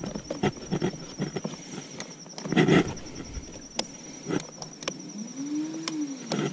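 Electric bow-mount trolling motor running with a steady high whine, worked by hand from its foot pedal, over knocks and scuffs of handling on the boat deck, with a louder scuffle about two and a half seconds in.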